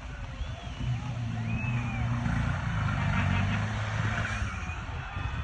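Off-road race vehicle's engine running past, growing louder to a peak about three seconds in and then easing off, with voices calling out over it.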